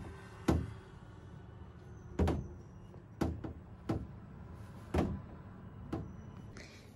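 A baby's hands slapping against a full-length standing mirror: about six dull knocks at uneven intervals, a second or so apart.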